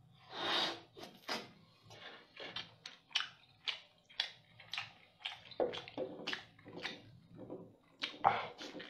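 A person eating whelk (sea snail) meat: one long slurp as the meat is sucked off chopsticks, then a run of wet chewing and lip-smacking sounds, about two to three a second, with a louder bite near the end.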